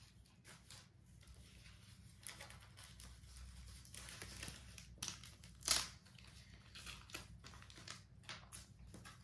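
Faint rustling and light ticks as a small taped cardboard packet is handled and set down on a table, with a sharper rustle a little over five seconds in.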